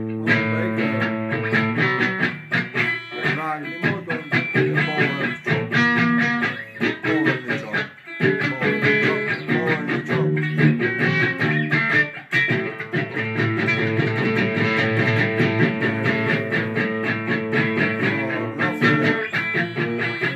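Stratocaster-style electric guitar strummed in a steady chord rhythm, with a man singing over it; the playing drops out briefly twice, about 8 and 12 seconds in.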